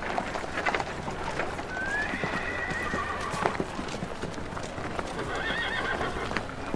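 Horse hooves clopping, with a horse whinnying about two seconds in.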